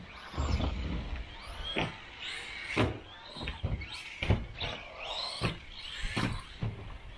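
1/12-scale RC buggy's LC Racing 5300kv brushless motor whining up and down in short throttle bursts, about once a second, with several sharp knocks of the car hitting the track's ramps and landing jumps.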